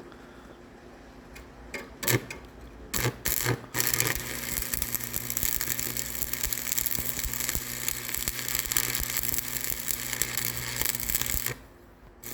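A few clicks, then a small electric motor runs steadily with a constant hum and a hiss for about seven seconds before cutting off suddenly.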